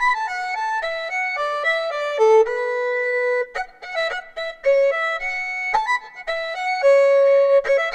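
Background music: a single bright melody line moving in short stepping notes, with a few light percussive clicks.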